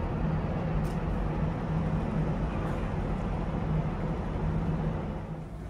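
Steady low hum of the docked car ferry Ishikari's engines running at its berth, over general port noise. The hum eases slightly just before the end.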